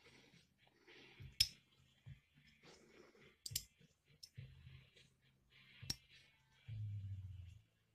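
Gerotor rotor of a Bizon combine's Orbitrol hydraulic steering unit turned by hand inside its ring: faint scraping with three sharp metallic clicks. Near the end comes a low rumble as a hand brushes the microphone.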